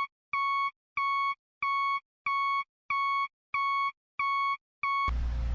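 Electronic beeping: a run of about eight identical single-tone beeps, roughly one and a half a second, with complete silence between them.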